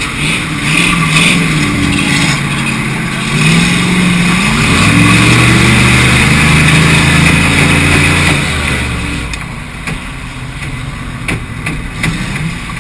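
Race cars' engines running on the track. One car revs up about four seconds in and passes loudly over the next few seconds, then the engine noise falls away.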